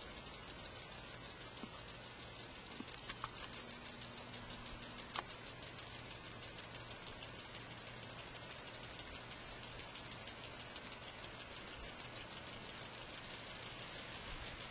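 Rooftop wildfire sprinklers spraying water over a shingle roof: a faint, steady spray noise with a fast, even flutter of about four pulses a second.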